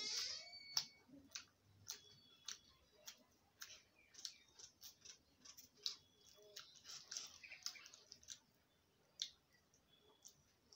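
A small bird chirping faintly and repeatedly: short sharp chirps, about two a second, with a denser run of chirps a little past the middle.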